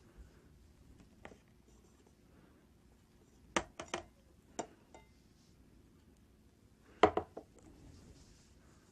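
A few short, sharp clicks and taps of something being handled on a tabletop: a group of three or four about three and a half seconds in, then a louder double click about seven seconds in.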